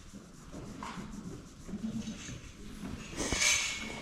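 A hand scratching and rubbing a goat's coat: soft, irregular rustling, with a louder scratchy rustle about three seconds in.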